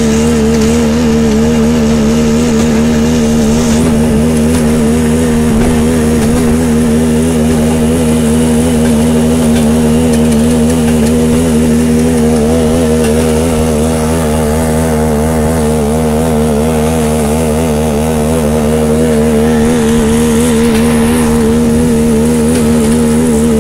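Small engine of a motor rail trolley running steadily under way along narrow-gauge track, with a slight dip in loudness midway.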